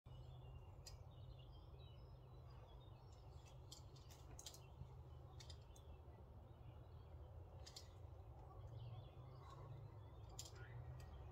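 Near silence with a low steady rumble, broken by scattered sharp clicks, about a dozen irregularly spaced, and faint bird chirps.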